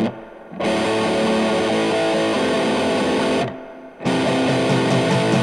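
Background music led by guitar, which drops out briefly at the start and again for about half a second three and a half seconds in.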